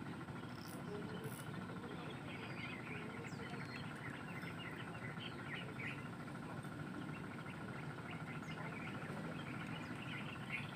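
Many small birds chirping in short, quick calls over a steady, fast-pulsing insect trill.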